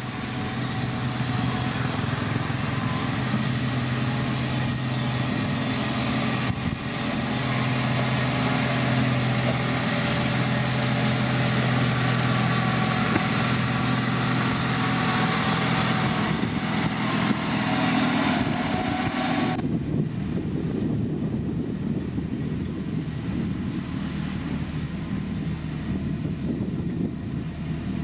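Diesel engine of heavy road-building machinery running steadily with a low hum. About two-thirds of the way through the higher part of the sound cuts off suddenly, leaving a low rumble.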